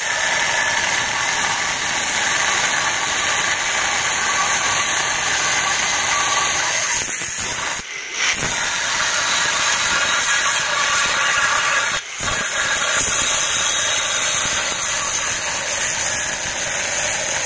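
Angle grinder with a thin cut-off disc cutting through a steel beam: a loud, steady grinding noise, broken twice briefly, about 8 and 12 seconds in.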